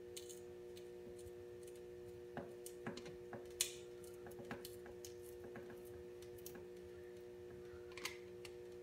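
Scattered, irregular light clicks and taps of hand tools working on hose clamps, the sharpest about three and a half seconds in and a pair near the end, over a steady electrical hum.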